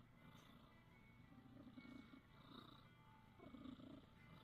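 A cat snoring softly: a faint rattling breath every second or two.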